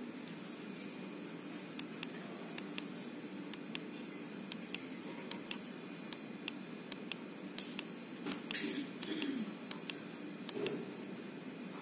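Plastic push buttons on a weather-station display console clicking as they are pressed repeatedly, a sharp click every half second or so, to scroll between graph screens. A brief rustle of the console in the hand comes about two thirds of the way through.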